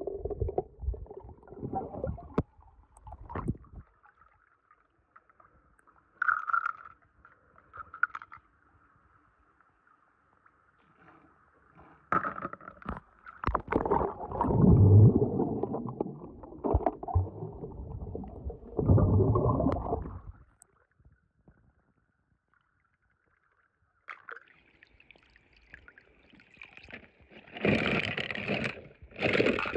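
Water sloshing and gurgling in irregular bursts as small die-cast toy cars are moved through it by hand, loudest for several seconds in the middle and again near the end. A faint steady high tone runs through the quieter stretches between the splashes.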